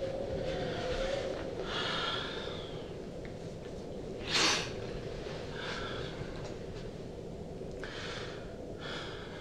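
A man breathing heavily, about six audible breaths, with one sharp, louder exhale like a snort about four and a half seconds in. A steady low hum runs underneath.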